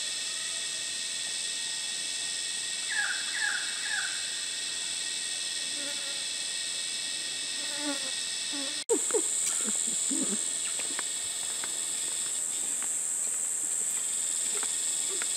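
Steady, high-pitched chorus of insects, with a bird giving three short falling calls about three seconds in. The chorus carries on after a brief break about nine seconds in, with a few soft taps of footsteps on rock.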